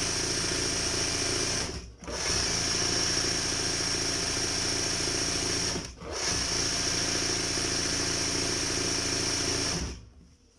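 Electric sewing machine running at speed, sewing a wide zigzag (satin-stitch) fill into an embroidered leaf. It runs in three spells, with brief pauses about two and six seconds in, and stops just before the end.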